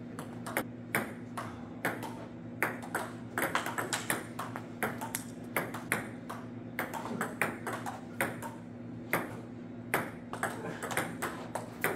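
Table tennis ball clicking sharply off the paddles and the table during rallies, several hits a second, over a steady low hum.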